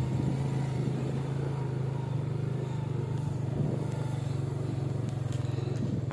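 A vehicle engine running steadily, a continuous low hum with a rough rumble that holds level without revving up or down.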